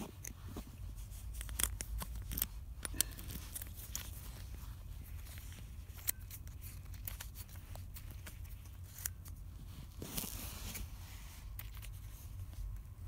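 Small irregular clicks and scrapes of a plastic key being worked in the keyway of a Master puck lock, over a steady low rumble.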